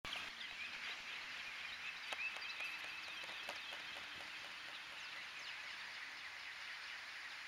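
Outdoor ambience with many small birds chirping: quick, high, overlapping chirps over a low steady hiss, with scattered faint clicks.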